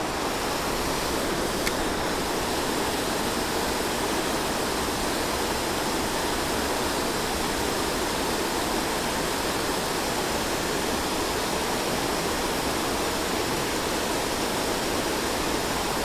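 Steady rushing of water pouring over a low dam spillway on a creek.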